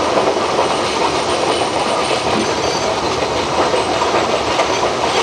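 R42 subway cars running on elevated track: a steady, loud noise of wheels on rails and the car body in motion, heard at the end of the car by the door to the gap between cars.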